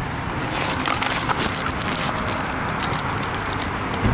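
Steady hum of road traffic, with scattered light ticks and scuffs over it for the first couple of seconds.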